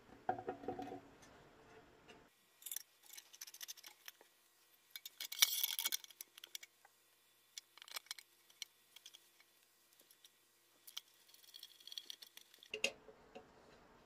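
Small metallic clicks and scrapes as a steel rod is fitted through the cast metal base of a banker's desk lamp and a nut is threaded on underneath. A longer scraping rattle comes about five and a half seconds in.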